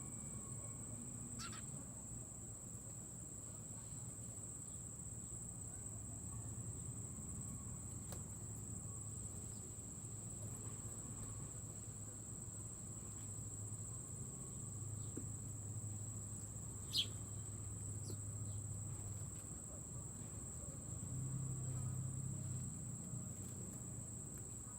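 Insects, crickets or similar, trilling steadily on one high pitch. A few short falling chip notes from a bird come over it, the clearest about two-thirds of the way through, with a low rumble underneath.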